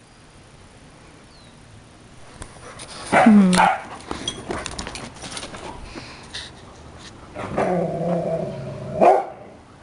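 Dogs vocalizing in rough play: a loud bark about three seconds in, a drawn-out growl lasting about a second near the end, then another short bark.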